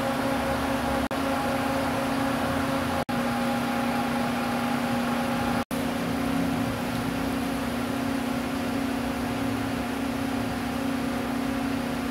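Steady mechanical hum of idling city buses over a constant hiss of rain. The sound cuts out for an instant three times.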